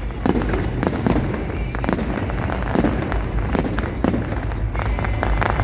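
Fireworks display: a fast, irregular run of bangs and crackles, several a second, over a steady low rumble.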